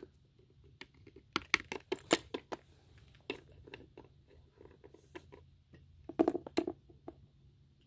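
Scattered clicks, taps and light scratches of a small plastic Littlest Pet Shop toy figure being handled and moved about on a wooden desk and a beaded mat, busiest about a second and a half in and again around six seconds in.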